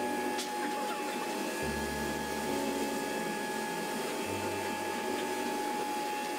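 Workshop machinery running: a steady drone with a constant high whine and a low hum that comes and goes every second or two. A sharp click about half a second in.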